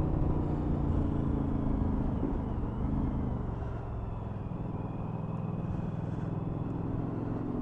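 2019 Suzuki V-Strom 1000's V-twin engine running while riding, a little higher for the first couple of seconds, then settling lower and steady.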